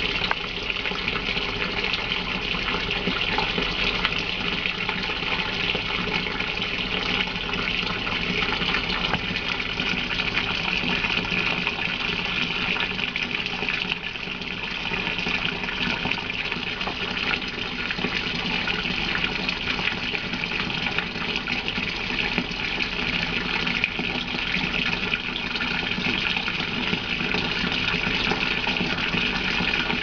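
Water pouring steadily from the inlet of a top-loading washing machine into its drum as the machine fills for a wash.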